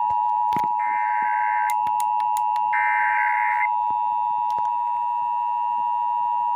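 Emergency Alert System required monthly test tones on FM radio: the steady two-tone attention signal, with two bursts of screechy digital header data, each about a second long, sounding over it in the first half, plus a few clicks.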